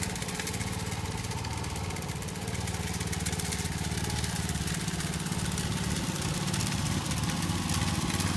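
Small engine of a ride-on spreader running steadily as it spreads sand over a lawn, getting a little louder near the end.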